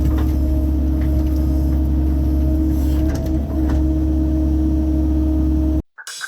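Mini excavator's diesel engine running steadily at work, with a few light knocks, then cutting off abruptly near the end. Electronic music starts right after.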